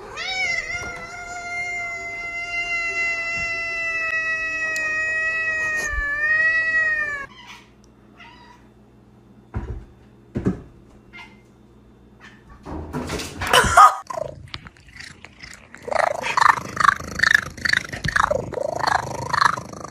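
A cat's long, drawn-out yowl held at a steady pitch for about seven seconds. After a pause come a louder cry and then a rapid run of short, broken meows.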